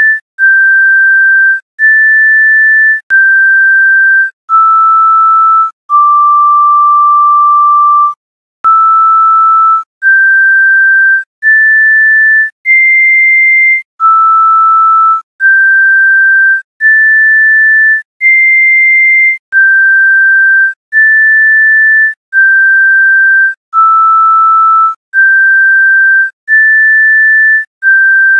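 A simple melody of pure electronic sine-wave tones, one note at a time, each held about a second with short gaps between. One lower note is held longer, about six seconds in.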